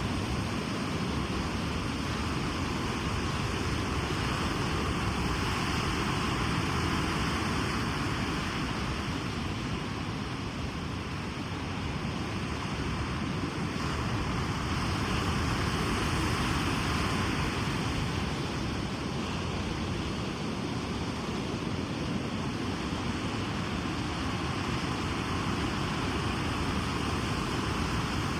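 Sea waves washing onto a beach: a continuous rush of surf that eases off about eleven seconds in and builds again a few seconds later.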